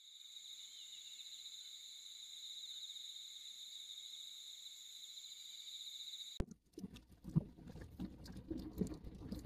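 Cicadas droning at a high, steady pitch that cuts off suddenly about six seconds in. Irregular low knocks and rumble follow, louder than the drone.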